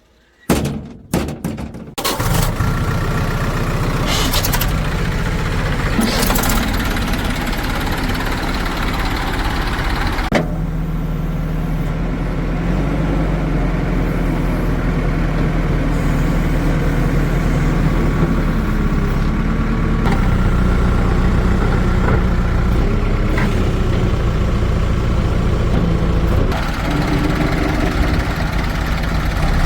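Diesel engine starting: a few short bursts of cranking, then it catches about two seconds in and runs steadily with a low, even note.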